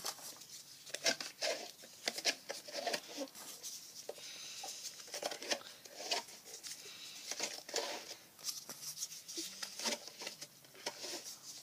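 Foam darts being pushed one by one into a plastic 12-dart Nerf clip: a run of small, irregular plastic clicks and scrapes.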